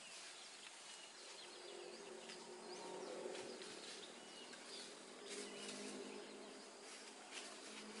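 Faint outdoor ambience: a low, wavering insect buzz, with short faint bird chirps scattered over it.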